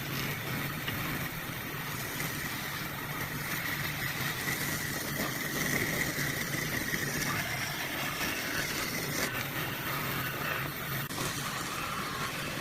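A motor running steadily with a low hum and, for the first several seconds, a faint high whine.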